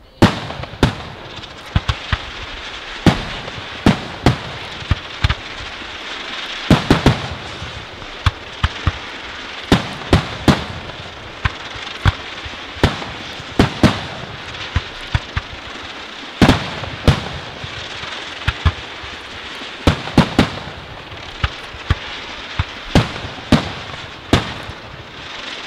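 Aerial firework shells bursting in quick, irregular succession: sharp bangs, often several a second, over a continuous crackling. It starts with a sudden loud bang.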